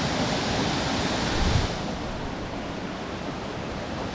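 Steady rush of a waterfall, with a brief gust of wind buffeting the microphone about a second and a half in; after that the hiss is softer and less bright.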